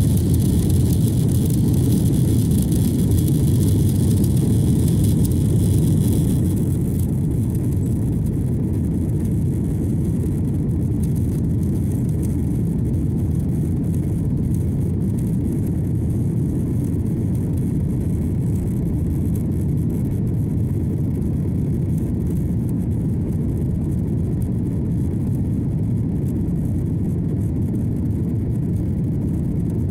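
Cabin noise of an Airbus A330-300 with Rolls-Royce Trent 700 engines as it moves along a wet runway toward takeoff. It is a loud, steady low rumble, with a high hiss that drops away about six seconds in.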